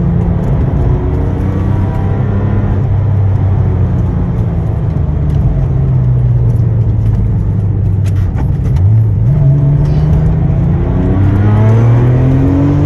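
Porsche 996 Turbo's twin-turbo flat-six heard from inside the cabin on track: the engine note falls off as the car slows, jumps up sharply about two-thirds through as a lower gear goes in, then climbs steadily as it accelerates again.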